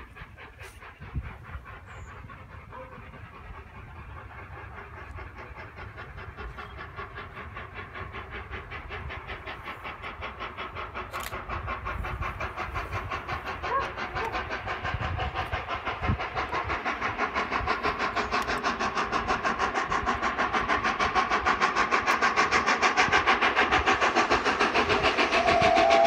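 Exhaust beats of 60163 Tornado, a three-cylinder Peppercorn A1 Pacific steam locomotive, working hard as it approaches. The beat is fast and even, and grows steadily louder from faint to strong.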